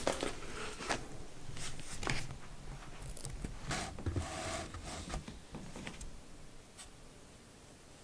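Cardboard box scratching and rustling as a cat paws and scrambles at it: a run of short scratchy strokes that dies away after about six seconds.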